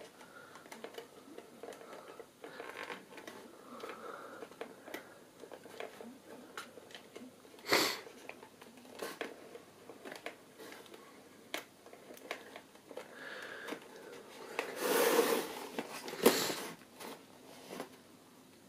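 Handling of a cardboard display box and the small plastic RC crawler inside it: scattered light clicks and rustles, a sharp click about eight seconds in, and louder rustling of cardboard around fifteen to sixteen seconds in.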